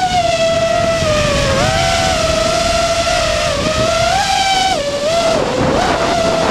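FPV freestyle quadcopter's four T-Motor F60 Pro II 2700 kV brushless motors and propellers whining, heard from the onboard camera; the pitch dips and rises several times as the throttle changes. Wind rushes over the microphone.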